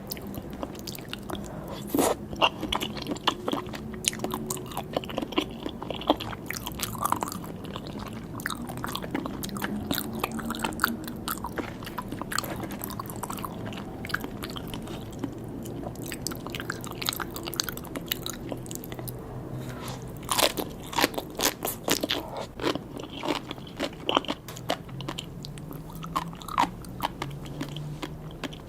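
Close-miked eating of sea grapes and salmon sashimi: steady chewing with many small crisp pops and crunches as bites are taken. The pops come thickest about two seconds in and again around twenty seconds in.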